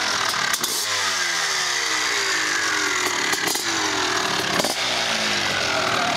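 Dirt bike engine revving in repeated blips, its pitch rising sharply and then sliding down slowly after each one.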